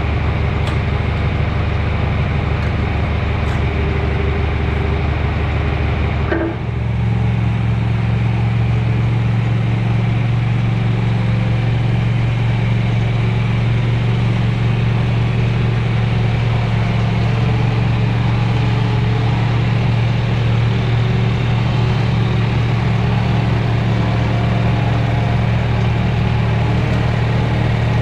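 A motor or engine running steadily with a strong low hum. About six and a half seconds in it briefly dips, then settles into a new steady tone.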